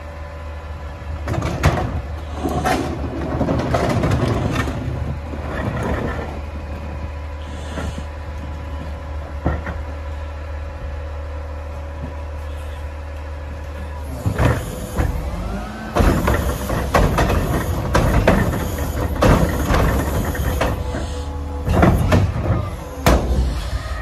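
Front-loader garbage truck's engine running with a steady low hum and a faint steady whine. Yard-waste carts are tipped into the carry can on its front forks, with knocks and clatter. About halfway through the sound grows louder and busier, with many more bangs.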